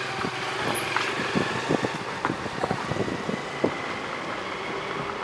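Vehicle driving along a road: steady running noise with scattered short knocks and rattles.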